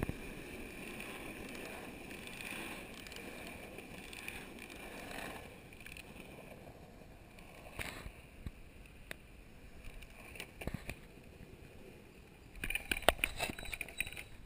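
Longboard wheels rolling over asphalt with a steady rushing noise that eases off after about five seconds, broken by a few sharp clicks. Louder, uneven scraping and knocking comes in near the end.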